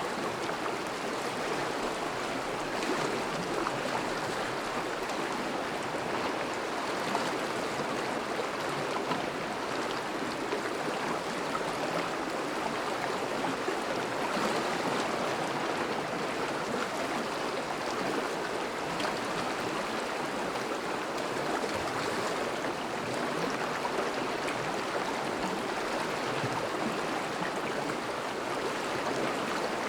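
Thawing river flowing steadily past snowy banks, a continuous rushing and burbling of moving water.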